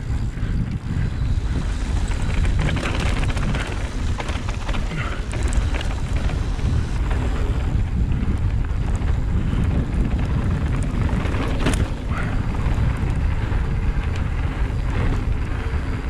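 Mountain bike descending a trail at speed: wind rushing over the chest-mounted camera's microphone, with scattered clicks and rattles from the bike over the rough ground and one sharper knock near twelve seconds in.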